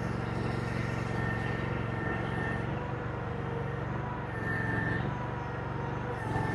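Engine of a Chinese compact earthmoving machine running steadily under work, with a higher whine coming in briefly twice, typical of the hydraulics working the bucket.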